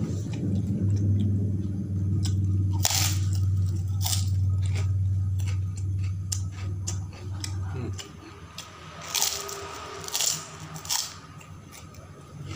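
A person eating: crunching bites of fried crackers (kerupuk) and chewing, with sharp crunches about three to five seconds in and again around nine to eleven seconds. A low steady hum runs under the first eight seconds, then stops.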